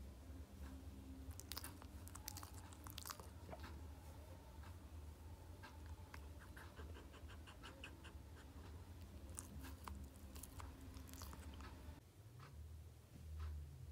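Small dog sniffing at a hand close to the microphone: faint snuffles and soft clicks, with a quick even run of sniffs about halfway through.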